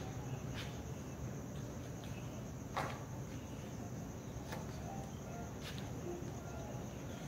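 Crickets chirping in a steady high trill over a low background hum, with a few light taps scattered through, the loudest about three seconds in.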